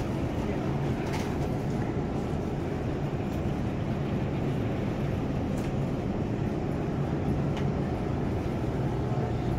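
Wire shopping cart rolling steadily over a supermarket floor, a continuous rumble with a few light rattles, over the low hum of the store's refrigerated cases.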